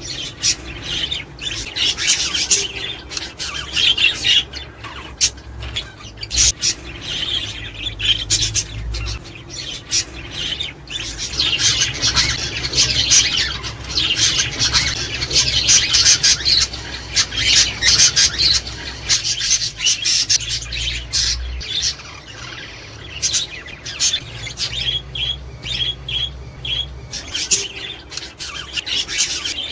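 A flock of budgerigars chattering: a dense, continuous mix of warbling, chirps and squawks.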